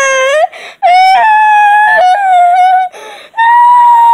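Loud, high-pitched crying wails from a young child, three in a row, each held on a nearly steady pitch for one to two seconds with short breaths between.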